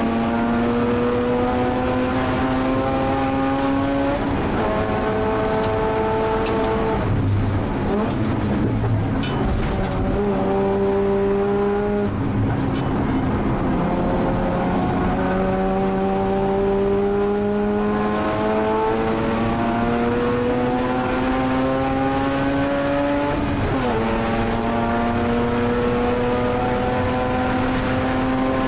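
Mazda RX-8 race car's twin-rotor Renesis rotary engine heard from inside the cabin at racing speed, revs climbing through the gears. The pitch drops sharply at each upshift, about four seconds in and again near the end. Between those, for a few seconds about a third of the way in, the revs sit lower and waver.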